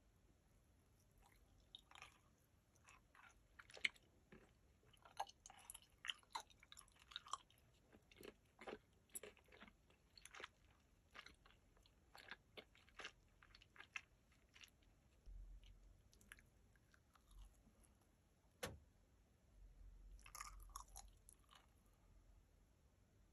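Close-miked biting and chewing of a yellow duck-shaped gummy candy, with many sharp crisp crunches. Near the end comes a single loud snap, then a brief burst of crackling.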